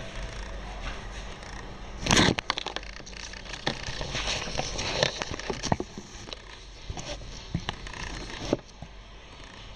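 Camera handling noise as the camera is picked up and repositioned: a loud bump about two seconds in, then scattered clicks, taps and rubbing against the microphone.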